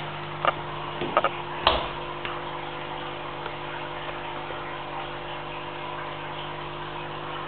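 A pit bull and a ferret play-fighting on a wooden floor: a few sharp clicks and taps in the first two seconds, over a steady low hum.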